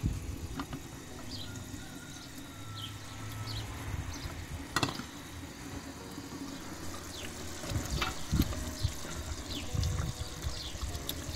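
Pot of walnut meatball stew simmering on the stove, bubbling with low, irregular popping. Short high chirps come and go in the background, and there is one sharp click about five seconds in.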